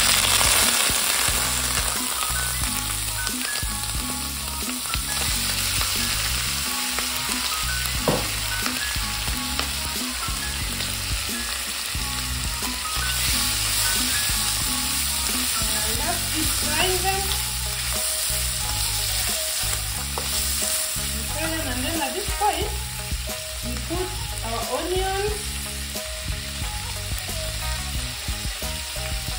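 Boiled beef tripe sizzling in hot oil in a stainless steel pan, loudest just as it goes in, with a spatula scraping and stirring it around the pan.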